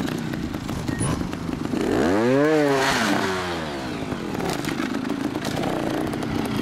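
Trials motorcycle engine revved hard about two seconds in, the revs rising quickly and falling back within a second or two, over the steady running of an engine at low revs.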